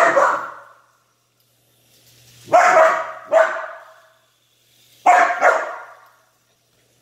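Aussie doodle barking: one bark, then two quick pairs of barks, each echoing off the bare walls of the garage.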